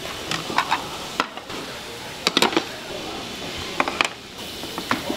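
Dishes and utensils clinking and knocking in a restaurant kitchen: a dozen or so short, sharp strikes, several in quick clusters, over a steady hiss.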